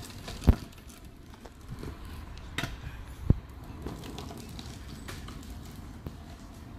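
Stunt scooter rolling over a gravel path, with two sharp knocks, the louder about half a second in and another just over three seconds in.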